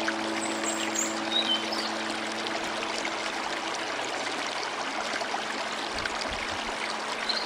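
Steady rush of flowing stream water. Held music notes fade out about halfway through, and a few faint high chirps come near the start.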